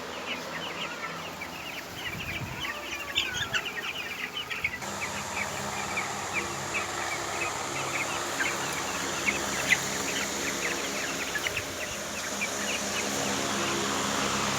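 A flock of poultry-farm chickens calling: many short, high-pitched calls overlapping continuously, over a steady low hum.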